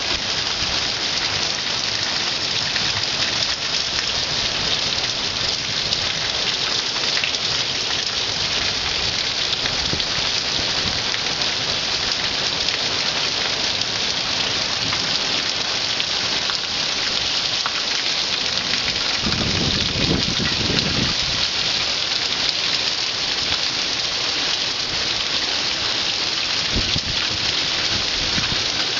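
Heavy monsoon rain falling steadily, a dense even hiss. About two-thirds of the way through there is a brief low rumble.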